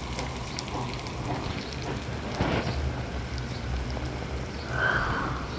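Onion and potato pieces sizzling gently in oil in a steel pan, a steady fine crackle, with a short louder hiss near the end.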